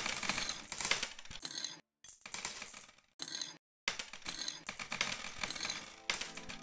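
Coins clinking and clattering in a coin pusher machine: a dense, irregular rattle of small metal impacts. The sound cuts out completely twice, briefly.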